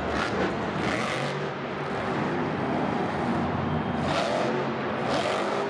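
Monster truck's supercharged V8 engine running hard and revving, its pitch rising and falling as the throttle is worked, with several loud noisy surges over a constant din.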